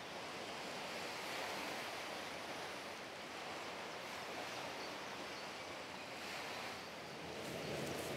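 Steady outdoor ambience of wind and waves on open water. A few soft rustles come in near the end.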